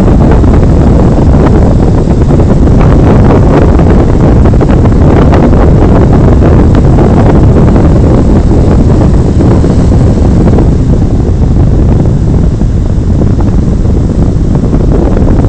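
Strong wind buffeting a phone's microphone loudly and steadily, over ocean surf breaking on the shore.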